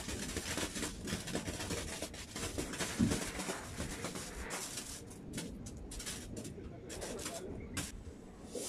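Ground fountain firework hissing as it sprays sparks. About five seconds in it breaks into scattered sharp crackles.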